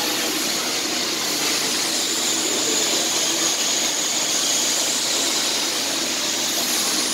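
Steady rushing noise of workshop machinery, like a fan or blower running, with a faint high whine in the middle.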